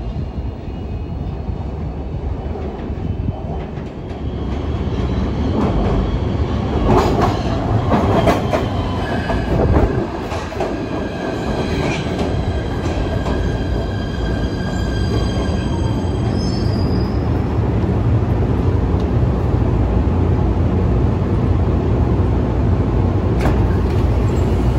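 PATH PA5 rapid-transit car running on rails: a steady low rumble of wheels and running gear, with high-pitched wheel squeal from about a quarter of the way in to about two-thirds through, and a few sharp knocks over rail joints along the way.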